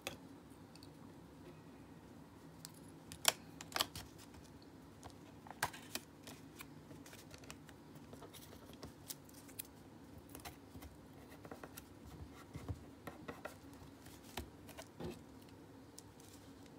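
Scattered light clicks and taps of a thin stainless-steel solder-paste stencil being handled, laid onto a circuit board and pressed flat by hand, the sharpest click about three seconds in.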